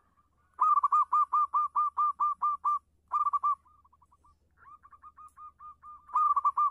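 Local zebra dove (perkutut) cooing in fast runs of short, clear notes at about five a second, with a softer run in the middle before the notes grow loud again near the end.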